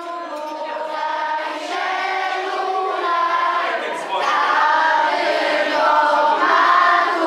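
Many voices singing together, children and adults, getting louder with a step up about four seconds in.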